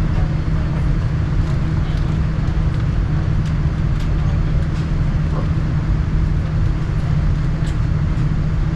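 Steady airliner cabin noise inside a Boeing 787-9 on the ground: a constant low hum over a rumble, with a few faint clicks.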